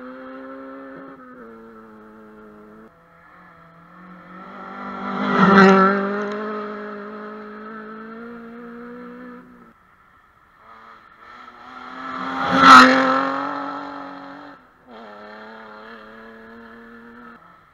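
Rally car engine approaching along a gravel stage, unseen behind the trees: revving hard, changing gear and lifting off, the note dropping out briefly around ten seconds in and again near fifteen. It swells loud twice, about five and a half and thirteen seconds in.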